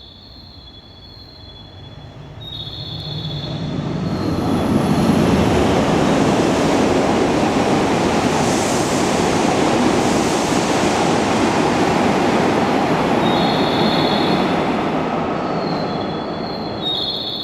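Hokuriku Shinkansen E7/W7-series train running along the platform. Its rumble and rush build over a few seconds, hold loud and steady for about ten seconds, then die away near the end.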